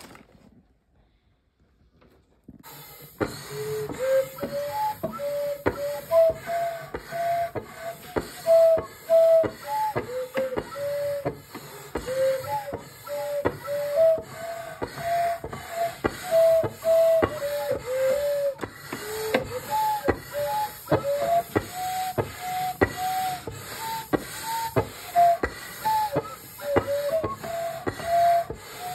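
Homemade wooden pipe organ with PVC pipes playing a stepwise tune in flute-like pipe notes, its keys and pallet valves clacking on nearly every note. The playing starts about two and a half seconds in.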